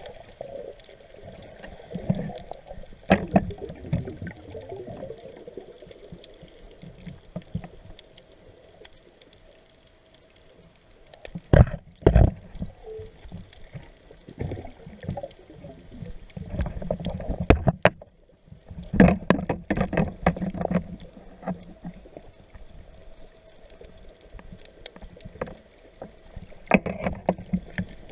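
Underwater sound picked up through a GoPro Hero3's waterproof housing: water moving and sloshing around the camera, with scattered sharp knocks and clicks, the loudest pair about twelve seconds in.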